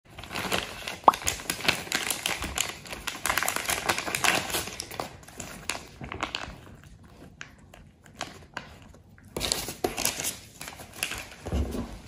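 Plastic treat packets crinkling and rustling as they are handled and opened by hand, dense at first, sparser in the middle, then crinkling again. A soft thump comes near the end.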